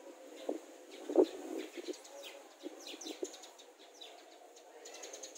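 Cloth rubbing compound over a plastic car headlight lens, with a few soft knocks, the loudest about a second in.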